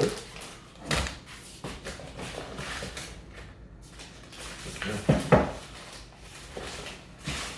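Food packages being handled and taken out of a cardboard box: a few short knocks and handling noises, the loudest about five seconds in.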